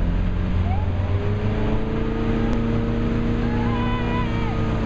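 Motorboat engine running under load as it pulls a water skier up out of the water, with rushing water from the spray and wake. A brief wavering high tone sounds near the end.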